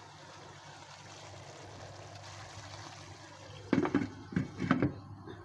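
Chicken and vegetables simmering gently in a wok over a low flame, a soft steady bubbling hiss. About four seconds in, a glass lid is set on the pan with a quick run of ringing clinks and knocks.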